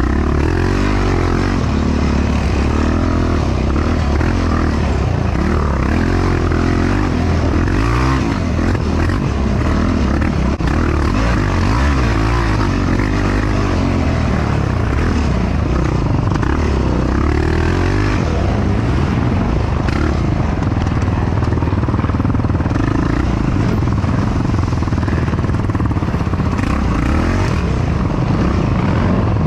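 Yamaha YFZ450R ATV's single-cylinder four-stroke engine racing, its revs rising and falling every few seconds as the rider works the throttle, with a steady rush of wind and rattling over it.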